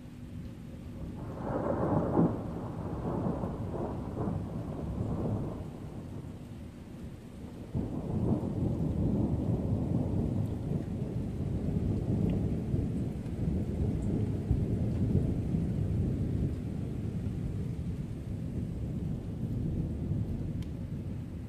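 Thunder during a thunderstorm: a first peal breaks about a second and a half in and rumbles for a few seconds, then a second peal starts suddenly about eight seconds in and rolls on in a long low rumble. Rain falls steadily underneath.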